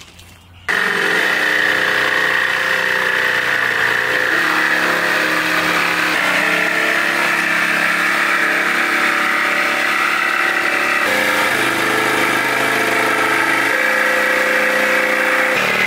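Jigsaw cutting through a plywood floor panel along a traced line: a loud, steady motor whine with the blade rasping through the wood. It starts just under a second in, and its pitch changes abruptly a few times.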